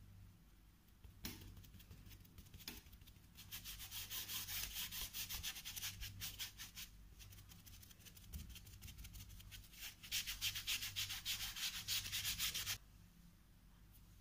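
A kitchen sponge dabbing and rubbing acrylic paint onto paper in quick repeated strokes. There are two spells, the second louder, and the strokes stop suddenly about a second and a half before the end.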